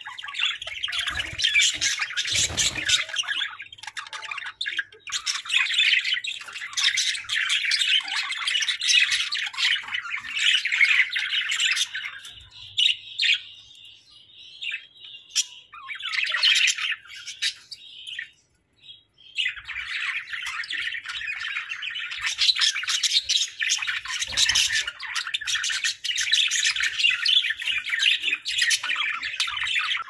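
A flock of budgerigars chirping and warbling in a dense, continuous chatter. The chatter thins out about midway, stops briefly, then picks up again in full.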